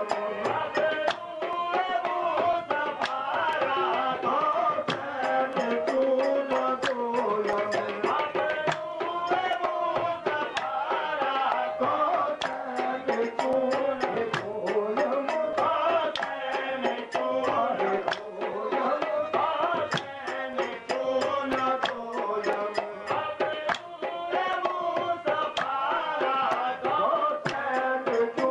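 Devotional qawwali-style music: a tabla keeps up a fast, steady rhythm under a wavering sung melody line.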